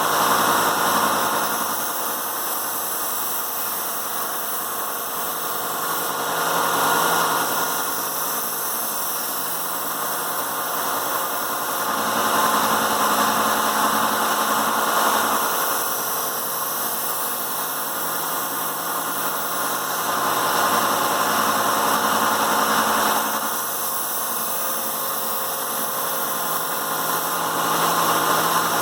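1x30 belt sander running with a 220-grit belt: a steady motor and belt noise, rising every several seconds into a louder rasp lasting a few seconds as the steel of a kitchen knife's edge is ground against the belt. It is the grinding that raises a burr on the edge.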